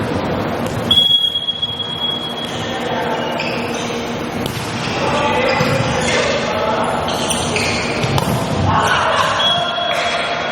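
Volleyball being played indoors: a referee's whistle blows for about a second and a half about a second in, with ball thumps and players' and spectators' voices around it, and a shorter whistle near the end.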